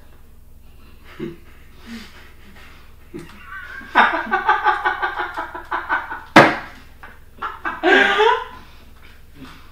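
A man laughing hard in quick high-pitched pulses, about four a second, for a couple of seconds, then a single sharp slap about midway and a short burst of laughter near the end.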